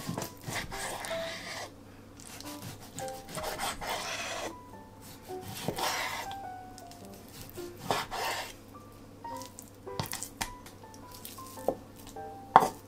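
A kitchen knife slicing through raw chicken breast on a wooden cutting board, in several drawn strokes with a rasping sound, then a few sharp knocks in the second half, the loudest near the end. Soft background music of short notes plays underneath.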